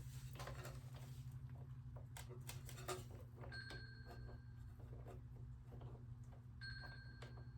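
Faint clicks and taps of hands working a brake line fitting at the motorcycle's rear brake caliper, over a steady low hum. An electronic tone, like a phone ringing, sounds twice, each time for about a second.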